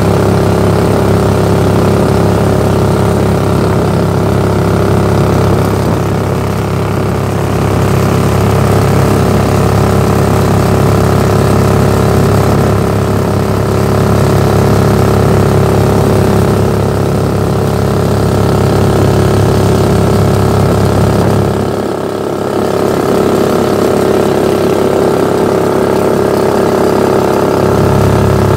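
Predator 420cc single-cylinder four-stroke engine running steadily under load on a Mud-Skipper Sport surface-drive mud motor pushing a jon boat, with a brief dip in level about three-quarters of the way through.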